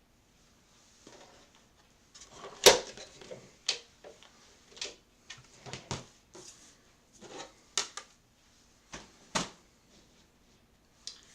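Irregular taps, clicks and light rustling of paper and craft tools being handled on a tabletop, with one sharper knock about two and a half seconds in.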